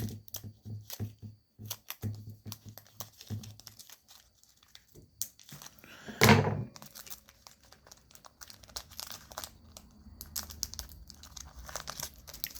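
Yu-Gi-Oh trading cards and foil booster-pack wrappers being handled: quick rustles and crinkling, with one louder thump about six seconds in and denser crinkling near the end.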